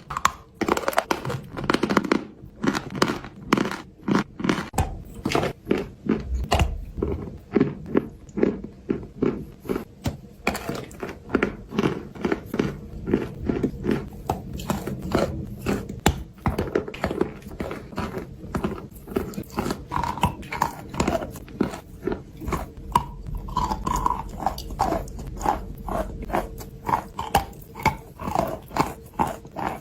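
A person biting and chewing dry white clay, each chew a crunch, in a steady rhythm of about two chews a second.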